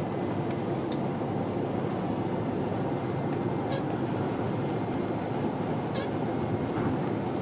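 Steady running noise of a Subaru Legacy, with three faint short ticks spread a couple of seconds apart; this is the car's abnormal noise being recorded.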